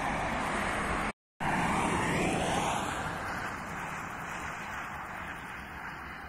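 Distant expressway traffic noise with wind on the microphone. The sound cuts out briefly about a second in, then swells louder, as of a vehicle passing on the highway, and slowly fades.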